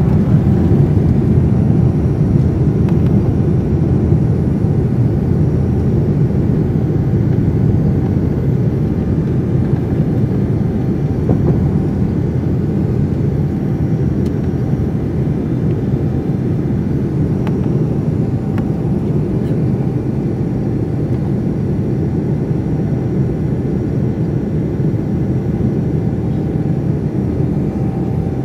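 Boeing 787-9's GEnx-1B turbofan engines at climb power, heard from a window seat inside the cabin: a steady, deep engine and airflow rush with a faint steady hum above it.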